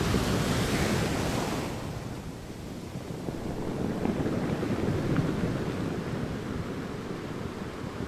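Sea waves washing on a shore, a rushing wash that surges over the first couple of seconds, ebbs, then swells again about four to five seconds in.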